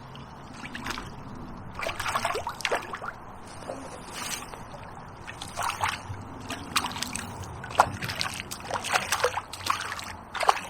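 A hooked perch splashing and sloshing at the river surface in irregular bursts as it is brought in to the bank.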